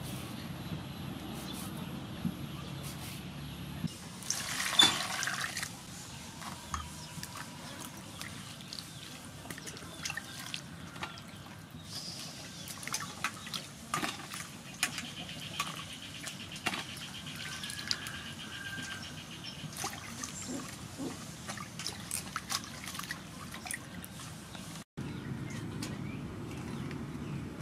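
Hands washing cut vegetables in a stainless steel bowl of water: water sloshing, splashing and dripping in many short strokes, with one louder burst about five seconds in.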